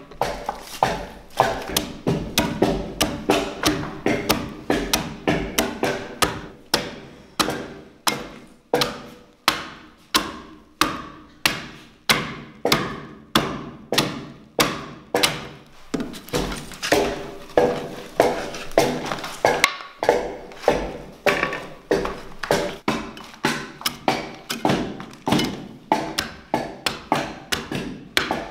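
Broad axe hewing a timber beam by hand: a steady run of chopping blows into the wood, about three every two seconds.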